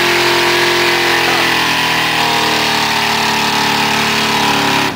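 Chevrolet Silverado 4x4 pickup's engine running steadily under load, its pitch wavering slightly, while the wheels spin in deep mud and the truck is stuck. It cuts off suddenly at the end.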